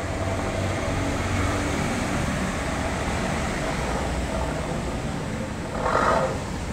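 Daihatsu Gran Max pickup's 1.5-litre four-cylinder engine idling steadily through an aftermarket stainless steel SUOS muffler with twin tailpipe tips. A brief, louder, higher-pitched sound comes about six seconds in.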